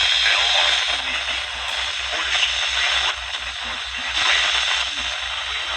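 NOAA Weather Radio receiver on a weak signal: loud static hiss, with a low buzz pulsing rapidly and evenly underneath.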